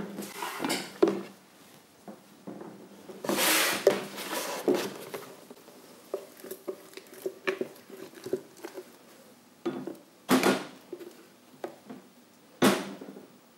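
Spatula scraping thick date caramel out of a plastic Vitamix blender jar into a small glass bowl: intermittent scrapes and soft knocks, with a sharp tap near the end.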